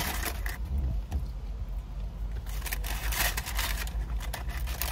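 Short clicks, crackles and rustles of food and paper wrappers being handled and eaten, in two brief clusters about half a second in and near the middle, over a steady low rumble inside a car's cabin.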